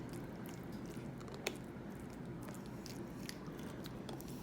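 A utensil mixing butter and brown sugar into a soft baked sweet potato: quiet squishing and scraping with light clicks, one sharper tap about a second and a half in, over a steady low hum.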